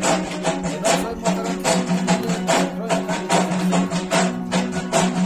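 Background music with a steady percussive beat, about two and a half beats a second, over a held low tone.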